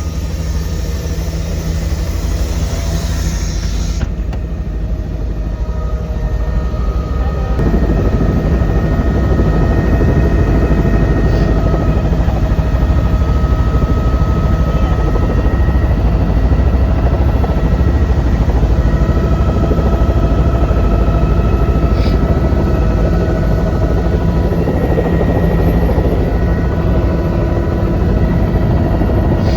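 Helicopter engine and rotor running steadily, growing louder about seven seconds in.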